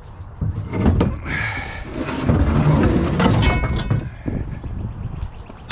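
Scrap metal clanking and rattling as pieces are handled and loaded on a truck, with sharp knocks and a couple of brief metallic rings.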